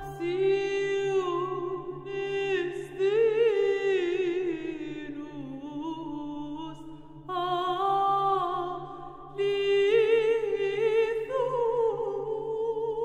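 Background music: a solo voice singing long held notes with vibrato in several phrases, separated by short breaths, over a steady low drone.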